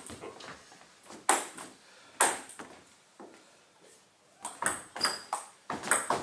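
Table tennis ball clicks: a couple of separate clicks in the first seconds, then a quick run of bat hits and table bounces from a rally, starting about four and a half seconds in.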